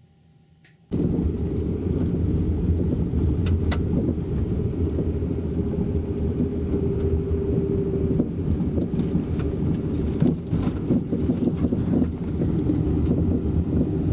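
Vehicle driving: a steady low rumble of engine and road noise with scattered knocks and rattles. It starts abruptly about a second in, after near silence.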